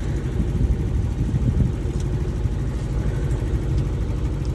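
A sailboat's auxiliary engine running steadily under way, a low, even drone with a rapid pulse.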